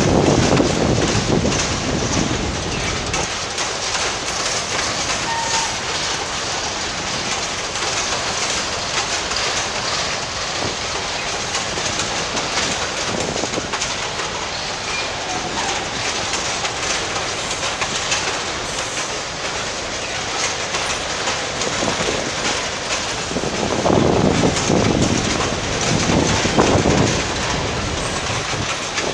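Slow-moving freight train wagons rolling past: a steady rumble and clatter of steel wheels on the rails, with faint brief wheel squeals now and then and a heavier rumble near the end.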